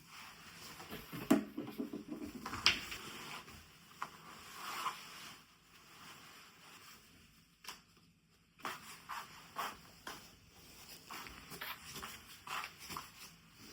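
Scattered small clicks, knocks and rustles, with two sharper knocks in the first three seconds.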